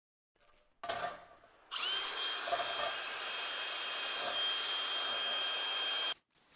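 Angle grinder with a thin cutting disc starting up about two seconds in. Its whine rises quickly to a steady high pitch and it runs at speed until it cuts off suddenly near the end. A short clatter comes just before it starts.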